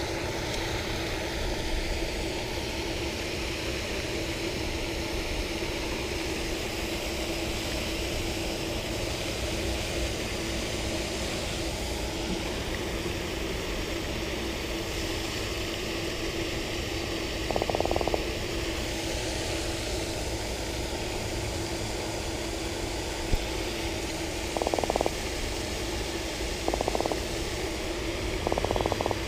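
A small croaker held out of the water croaks in several short buzzing grunts, once about two-thirds of the way in and three times near the end, over a steady background hum.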